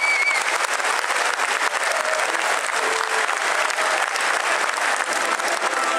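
Large stadium crowd applauding, a steady dense clatter of many hands, with a short high whistle right at the start.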